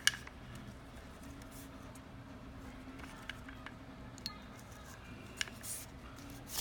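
Light clicks, taps and a brief rustle from a precision screwdriver kit's case being handled, with one sharp click right at the start, over a steady faint hum.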